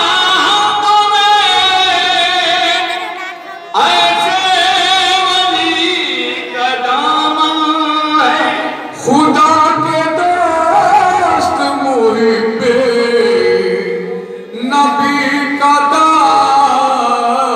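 Qawwali singing: a solo voice sings long, ornamented melodic phrases, pausing briefly for breath about every five seconds.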